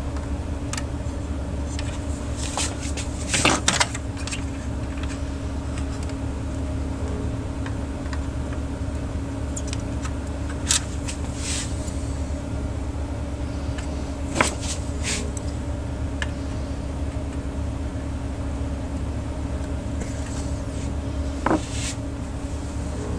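Steady electrical mains hum from workbench equipment, with a few sharp clicks and brief scratchy sounds of hand tools at work on a circuit board while a replacement coil is soldered in.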